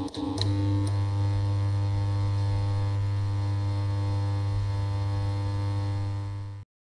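Steady low electronic hum with even overtones, the sound laid under an animated title card, with a few quick clicks as it starts. It holds one unchanging pitch and cuts off abruptly near the end.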